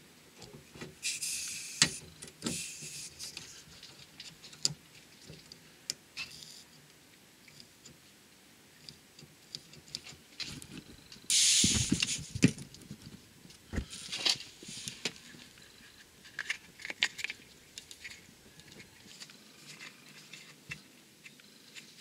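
Short bursts of compressed air hissing from a blowgun pushed into a diesel fuel filter inlet, putting the fuel circuit under pressure to find an air leak. The loudest hiss comes about eleven seconds in, among light metallic clicks and handling.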